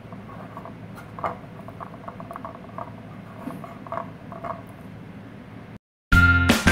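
Faint soft taps and rustles of hands pressing biscuit dough into a metal muffin tin. After a brief dead silence near the end, much louder background music starts.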